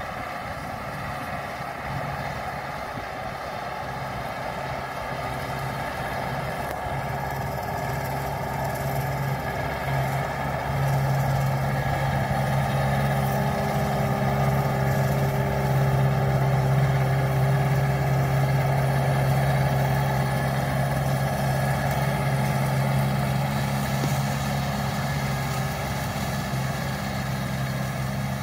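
Farm tractor's diesel engine running steadily under load while pulling a hay tedder. It grows louder as the tractor comes nearer around the middle and eases off a little as it moves away.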